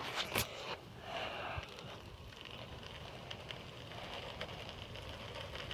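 A few brief rustles and clicks in the first second, then faint, steady outdoor background noise.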